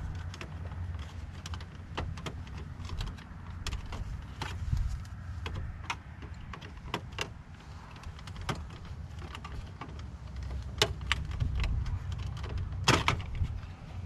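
Scattered plastic clicks and scrapes as a flat-bladed tool pries at the side retaining tabs of a 2000–2006 Chevy Silverado's headlight and dimmer switch unit. A louder snap comes near the end as the unit pops free of the dash. A steady low rumble runs underneath.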